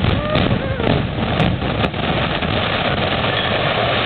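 Building collapsing after its explosive demolition charges have fired: a loud, steady low rumble of the falling structure. A few sharp cracks come in the first two seconds.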